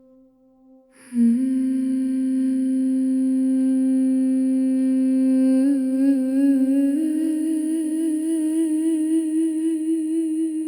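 A single voice humming a long sustained note, stepping up to a higher note about halfway through and then holding it with a steady vibrato, as a wordless introduction to a sung scripture setting.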